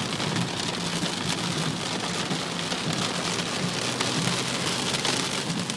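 Heavy rain falling steadily on a car, a dense patter of drops hitting the body and glass.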